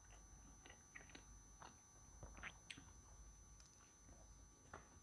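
Faint chewing of a mouthful of pizza, a few soft clicks and smacks scattered through near silence.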